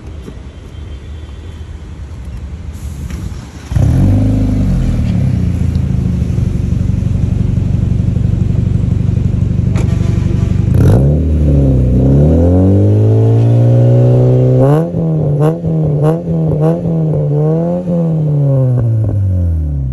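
Hyundai Elantra's engine running through an aftermarket HKS dual-tip exhaust. It turns loud and steady about four seconds in, then is revved: a slow rise and fall in pitch, several quick throttle blips, and a drop back down near the end.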